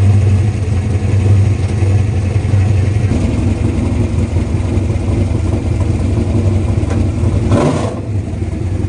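A race car engine idling steadily, with a brief rush of noise about three-quarters of the way through.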